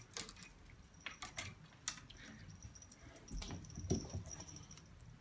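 Cat batting and pawing at a small toy: scattered light clicks, taps and rattles, faint and irregular, with a soft thump a little past halfway.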